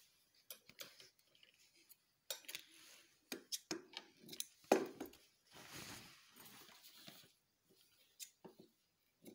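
Scissors snipping loose thread ends after a seam has been sewn, with short clicks and brief fabric rustling between the cuts.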